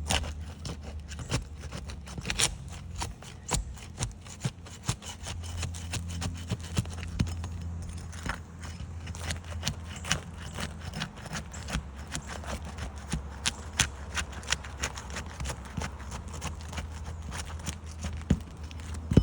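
Asphalt shingles being pried apart with a roof snake: irregular clicks, ticks and scrapes as the tool works the top course loose from the one below, over a low steady hum.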